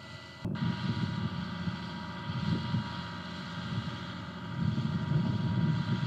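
Low, uneven rumble of an M142 HIMARS launcher truck's engine running, with a faint steady whine above it. It starts abruptly about half a second in and gets louder near the end.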